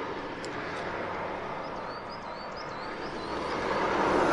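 A large tanker lorry approaching along a steel road bridge, its engine and tyre noise growing louder toward the end as it draws near. A few faint high chirps in the middle.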